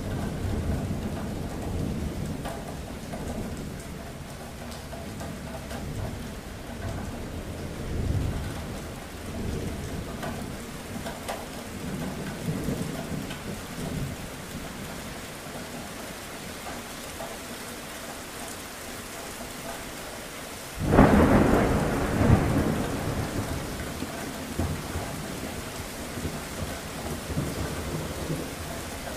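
Steady rain with thunder: low rumbles swell and fade. About two-thirds of the way in, a sudden loud thunderclap breaks, the loudest thing here, and rumbles away.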